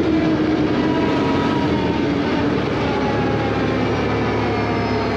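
Four-wheeler (ATV) engine running steadily at speed along a dirt road, mixed with a loud rush of wind and tyre noise; a low engine hum grows stronger about three seconds in.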